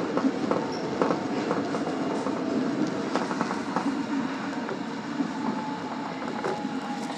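Osaka subway train running on the Tanimachi Line, with wheels clicking over the rails over a steady rumble. A faint steady whine comes in during the second half while the overall sound eases down.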